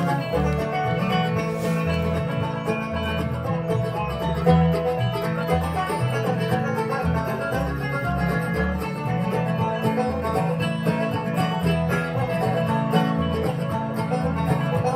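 Acoustic bluegrass band playing an instrumental intro on banjo, acoustic guitar and plucked upright bass, with no singing yet.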